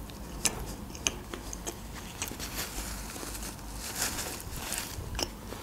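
Close-up mouth sounds of someone chewing food: scattered sharp wet clicks and lip smacks, with a soft paper-napkin rustle about four seconds in.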